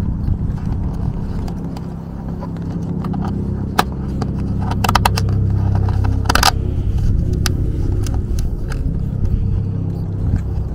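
Two short bursts of rapid ratcheting clicks in the middle, from nylon cable ties being pulled tight, with a single click just before them. A steady low rumble runs underneath throughout.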